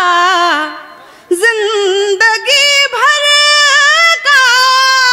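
A woman singing a Hindi geet solo into a microphone, holding long notes with a slight vibrato, with no accompaniment; she breaks off briefly about a second in, then resumes.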